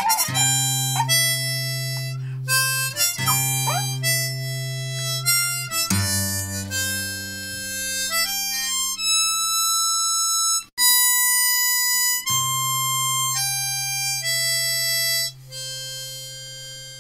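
Harmonica playing a melody of held notes over strummed acoustic guitar chords. The guitar drops out briefly about eleven seconds in, and the playing gets quieter near the end.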